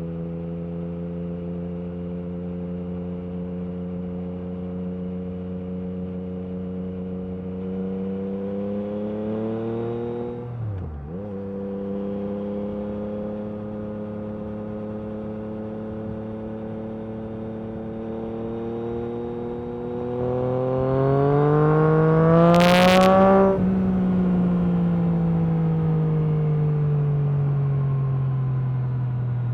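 Yamaha MT-09 SP's three-cylinder engine through an Akrapovic carbon racing exhaust, ridden on the road: it holds steady revs, drops briefly in a quick gear change about ten seconds in, then revs up hard to its loudest point with a short sharp crack two-thirds of the way through. The revs then fall steadily as it slows.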